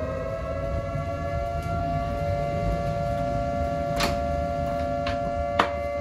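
Outdoor warning siren, like a tornado siren, wailing on a steady two-note pitch. A couple of short clicks sound over it in the second half.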